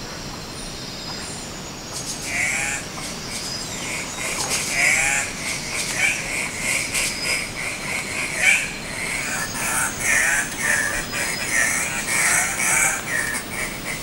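Andean cock-of-the-rock calling: harsh, croaking squawks repeated in quick succession, starting about two seconds in.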